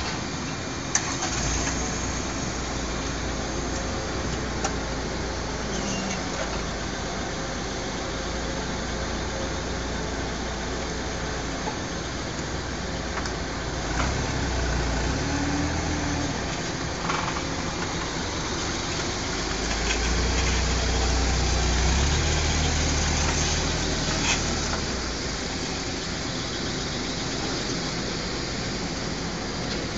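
Propane-fuelled Toyota forklift's engine running, getting louder for a couple of stretches in the middle as it works, with a few light knocks.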